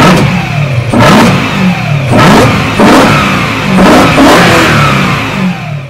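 BMW E92 M3's 4.0-litre V8 being revved in quick throttle blips about once a second, each rising sharply and falling back, heard at its open cone air filter.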